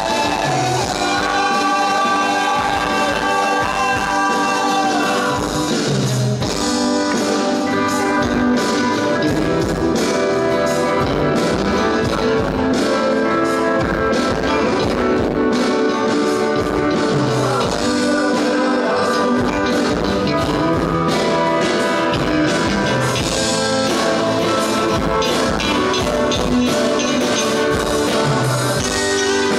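Live rock band playing loud, with electric guitars and a drum kit, and a singer.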